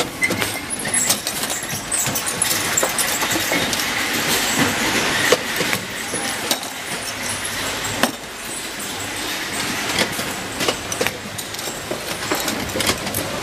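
Steady din of a hinge-assembly workshop, with irregular sharp metal clicks and knocks from the presses and the metal hinge parts. The two loudest knocks come about five and eight seconds in.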